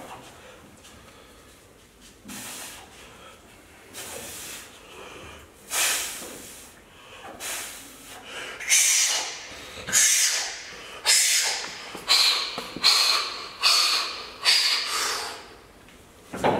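A powerlifter taking sharp, forceful breaths while psyching up over a loaded deadlift bar: a few scattered breaths, then from about halfway a run of hard, airy breaths roughly once a second, coming quicker toward the end.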